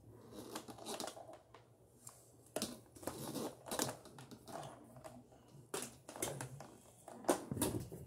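Irregular rustling, crinkling and knocking of things being handled, in a series of short sharp bursts that come thickest and loudest near the end. No vacuum motor is heard running.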